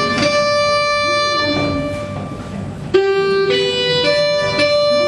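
A class of children playing recorders together in unison. One long held note, a brief break, then a run of shorter notes from about three seconds in.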